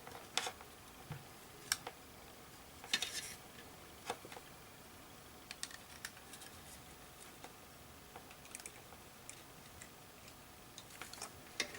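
Scattered light clicks and taps of small hand tools on a circuit board while a diode is being desoldered, with a short scraping rustle about three seconds in.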